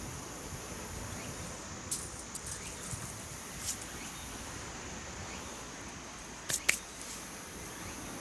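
Steady outdoor background hiss with a few scattered sharp clicks or snaps, the loudest two in quick succession near the end.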